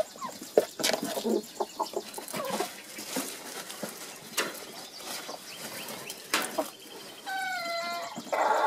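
A flock of backyard hens clucking as they feed, with scattered sharp taps over the first few seconds. Near the end one hen gives a drawn-out call lasting under a second, followed by a louder, rougher squawk.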